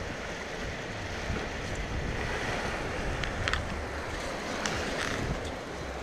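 Small lake waves washing onto a sandy shore close to the microphone, with wind buffeting it in a steady low rumble. A few faint clicks around the middle.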